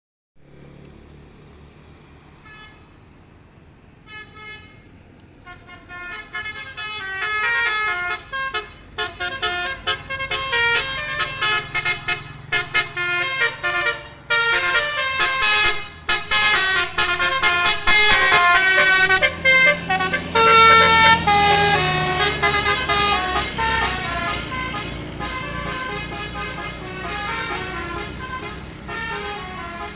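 Basuri multi-tone telolet bus air horn playing a fast melody of short stepped notes, starting with a few soft notes and growing loud from about six seconds in, over a low steady hum.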